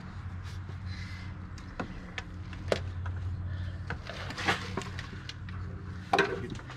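Several scattered sharp clicks and knocks of tools and parts being handled at a car's engine, the strongest near the end, over a steady low hum.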